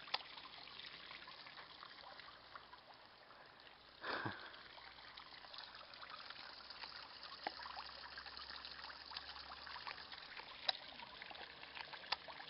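Small stacked-stone garden fountain, water trickling steadily over the rocks into its pool, faint. A short bump about four seconds in.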